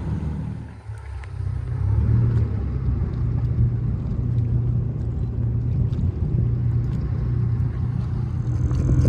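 Dinghy's outboard motor running steadily, with a brief drop in level about a second in.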